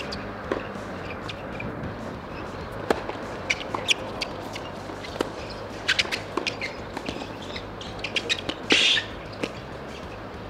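Tennis rally on a hard court: irregular sharp racket strikes and ball bounces, with short high shoe squeaks on the court surface and one louder brief burst about nine seconds in.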